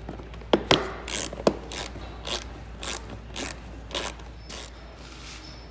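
Socket ratchet being worked back and forth to run in a plastic side-cover bolt, a short rasp of pawl clicks on each back-stroke, about two strokes a second, after a few sharp clicks as the socket goes on.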